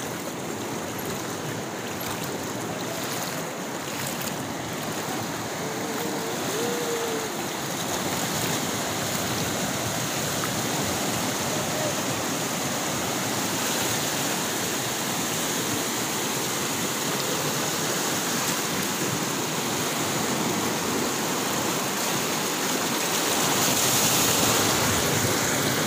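Kabini river in flood rushing and churning against a low bridge: a steady, dense rush of whitewater that grows louder near the end.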